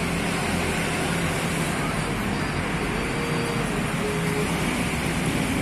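Steady background rumble and hiss at an even level, with no distinct sounds standing out.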